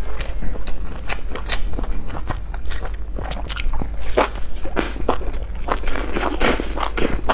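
Close-miked biting and chewing of a flatbread sandwich stuffed with sausages: a run of crisp crunches that grows denser and louder in the second half.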